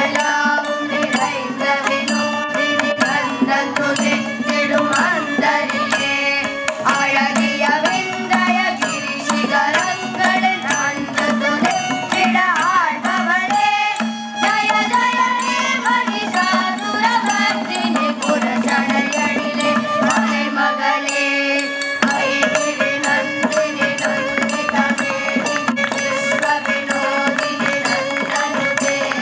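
Carnatic music accompanying a dance: a gliding melodic voice over quick, dense drum strokes and a steady low drone, the drone dropping out about three quarters of the way through.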